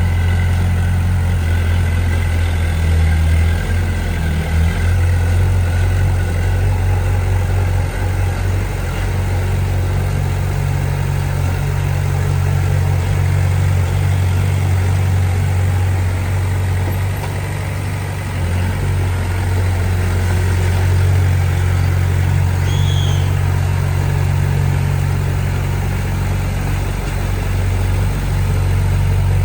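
Bulldozer diesel engine running steadily under work, with a deep, even hum that eases briefly a little past halfway before picking up again.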